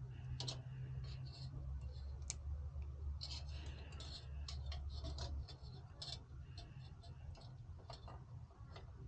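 Irregular light clicks and taps of small computer hardware being handled, thicker around the middle, over a steady low hum.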